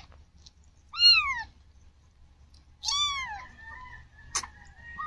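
Cat mewing: short, high-pitched mews about two seconds apart, each rising then falling in pitch, with fainter thin cries between them and a sharp click near the end.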